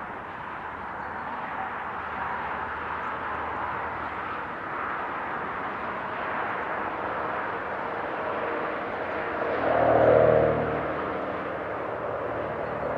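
Steady hum of motorway traffic crossing a viaduct, mostly tyre noise. A single vehicle's engine swells up and passes about ten seconds in.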